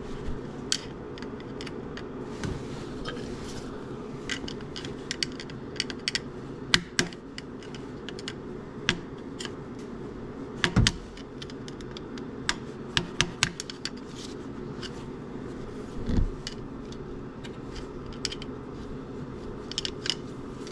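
Screwdriver tip clicking, tapping and scraping against a steel snap ring and the A/C compressor pulley as the ring is worked into its groove: irregular sharp metallic clicks over a steady low hum.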